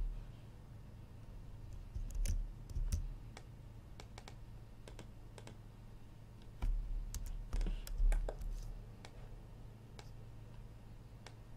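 Scattered keystrokes and clicks on a computer keyboard: single taps spread out, and a quicker run of several about two-thirds of the way through, some landing with a dull low thud.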